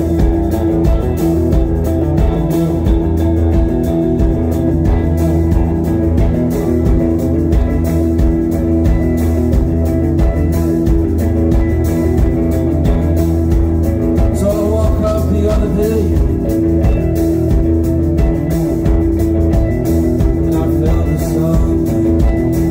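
Live rock band playing loudly: electric guitars and drums, with a singer's voice.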